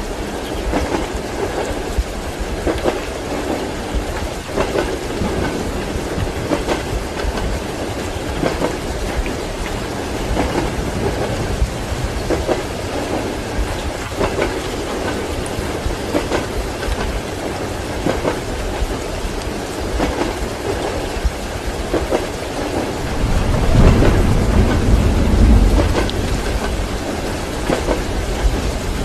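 Train wheels clacking over rail joints in a steady rhythm, the knocks coming in pairs about every two seconds, under a constant hiss of heavy rain. A low roll of thunder swells in about three-quarters of the way through and is the loudest sound.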